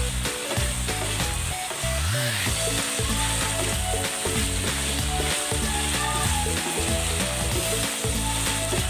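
Chicken cubes and button mushrooms sizzling in a nonstick frying pan as a wooden spatula stirs them, under background music.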